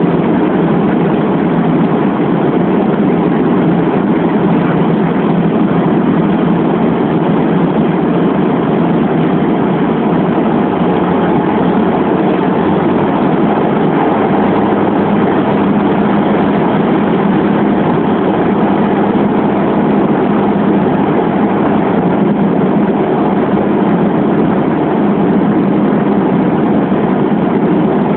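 Steady cabin drone of a Bombardier Dash 8 Q400's Pratt & Whitney PW150A turboprop engines and six-blade propellers in flight, a deep, even hum over a wide rush of noise. A low tone in the hum grows a little stronger about a quarter of the way in.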